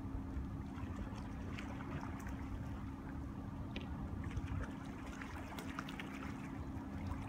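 Quiet water trickling and lapping, with small drips and ticks scattered through it. Underneath are a low wind rumble and a faint steady hum.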